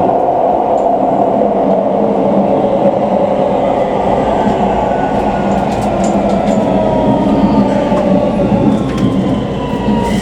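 Keikyu New 1000 series electric train running, heard from inside a passenger car: a steady rumble of wheels on rail with a thin whine that slowly falls in pitch.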